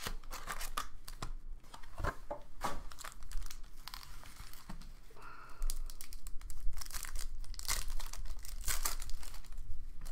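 A foil trading-card pack wrapper being torn open and crinkled by hand, in irregular crackling bursts that are busiest in the second half.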